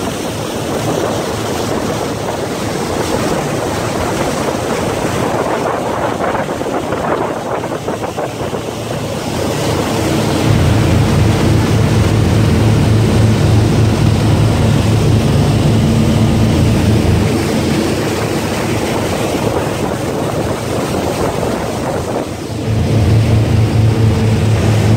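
Wind and water rushing past the hull of a Sea Ray 330 Sundancer under way. About ten seconds in, the steady drone of its twin inboard engines comes up under the wash of the churning wake, easing briefly near the end before returning.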